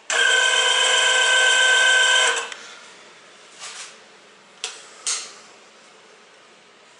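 Z3032 radial drill's arm elevation motor and gearing running with a steady whine as the arm travels on the column, stopping abruptly about two and a half seconds in. A few soft clicks follow.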